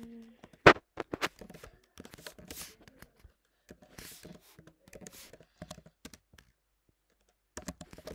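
Computer keyboard typing: irregular key clicks in short runs, with a sharp, much louder click just under a second in. The typing pauses for about a second near the end, then a few more keystrokes.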